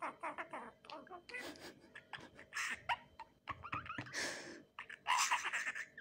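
Budgerigar chattering in a rapid string of short, scratchy chirps and clicks, the talking-budgie warble that imitates speech, loudest about five seconds in.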